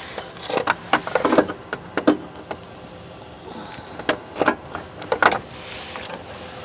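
Irregular clanks and knocks as a starter motor is worked up past the transfer case housing into its mounting spot, in two clusters with a quieter stretch between.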